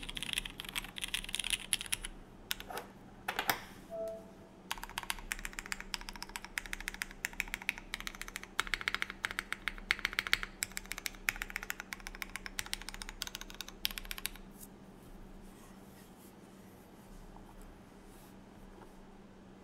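Typing on a custom o-ring-mounted mechanical keyboard with lubed Cherry MX Red linear switches, a UHMWPE plate and GMK keycaps, keystrokes in quick runs. There is a short pause about three seconds in. The typing stops about three quarters of the way through, leaving quiet room tone.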